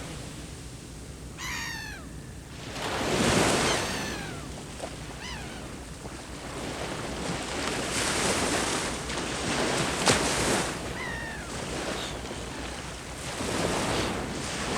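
Sea waves breaking on the shore, the surf swelling and fading every few seconds. Over it a bird gives several short, falling cries, and there is one sharp click about ten seconds in.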